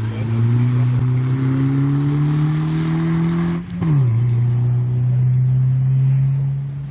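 Slalom race car's engine accelerating hard, its pitch climbing steadily, then a quick upshift a little past halfway with a brief break in power and a sudden drop in revs, after which it pulls steadily again until the level eases off near the end.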